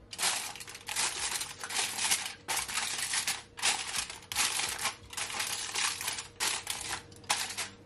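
Aluminium foil crinkling as it is pressed and tucked down over a baking pan, in short crackling bursts one after another.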